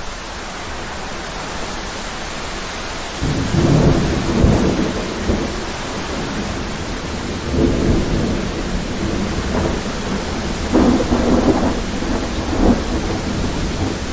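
Thunderstorm: steady rain hiss, with thunder breaking in suddenly about three seconds in. The thunder rolls on in several rumbling waves, with a sharp crack near the end.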